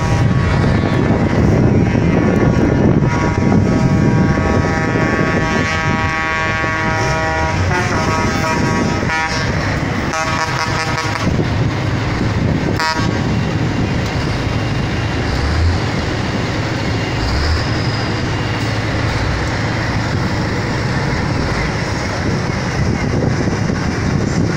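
Big truck engines running with a loud, steady low rumble. About three seconds in, a truck air horn sounds a long blast, then several shorter toots, stopping around eleven seconds in.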